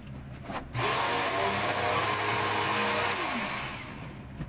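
A cheap handheld rotary tool with a cutting wheel, switched on about a second in, runs at full speed with a high whine and hiss. Its pitch slides down and it winds off near the end. The owner calls the tool super duper underpowered.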